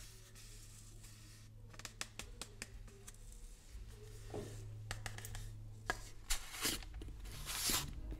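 Metal teaspoon scooping and scraping powdered herbal granules in a plastic bottle: a run of light clicks and scrapes, then louder shaking, swishing sounds over the last couple of seconds.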